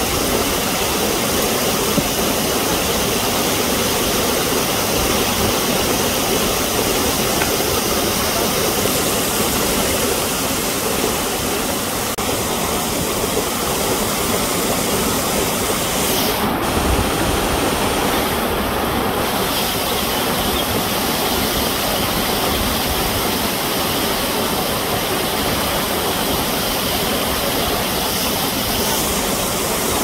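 Waterfall pouring down a rock face close by: a steady, unbroken rush of falling water.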